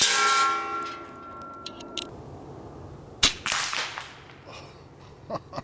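Pellet air rifle firing at a target: a sharp impact at the start leaves a clear ringing tone for about two seconds. About three seconds in comes a second sharp crack, followed by a short noisy burst as the pellet strikes.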